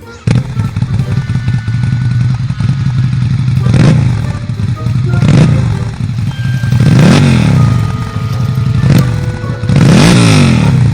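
Motor vehicle engines running with a steady drone while vehicles zoom past one after another, about five passes, each rising and then dropping in pitch as it goes by. The sound starts suddenly just after the beginning.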